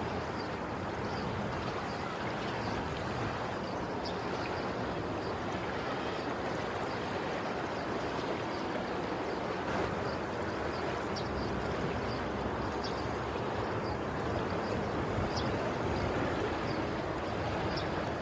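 Sea waves washing in, a steady rush of surf that swells slightly near the end.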